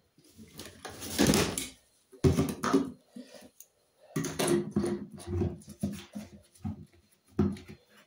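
Whining, whimpering vocal sounds in short wavering bursts, with a louder rustling noise about a second in.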